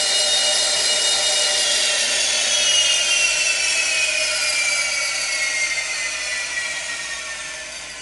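Jet-turbine whine winding down: a slowly falling whine over a hiss, fading away steadily.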